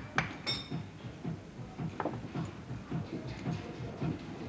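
Small steel gun-lock parts clicking as they are handled at a workbench: a few sharp clicks near the start and one about two seconds in, over soft low thuds repeating about three times a second.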